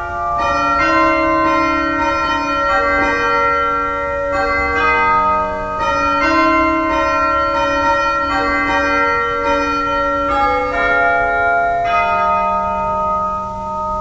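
Church bells ringing a slow sequence of overlapping, sustained notes, with a new note struck every second or so.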